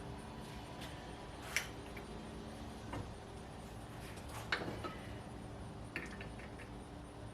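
A few light metallic clinks and taps as a steel lawn mower blade is handled and set on a blade balancer, the sharpest about one and a half and four and a half seconds in, over a low steady hum.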